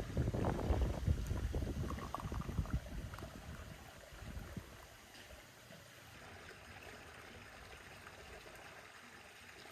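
Tea poured from a glass teapot into a small glass, a liquid trickle over rough low rumbling noise. The rumbling dies down about four seconds in, leaving a faint steady hiss.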